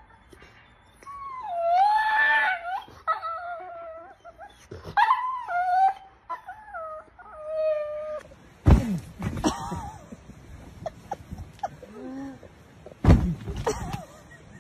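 A pet, most likely a dog, giving a run of long, wavering wails and whines that bend up and down in pitch. In the second half these give way to a few sudden loud knocks and thuds.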